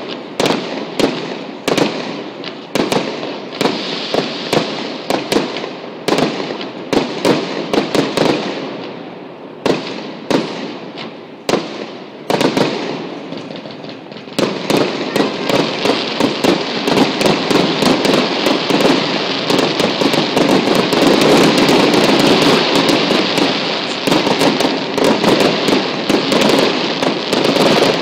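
Fireworks display: shells bursting in a string of separate sharp bangs, which about halfway through thickens into a dense, almost continuous barrage of rapid bangs and crackle.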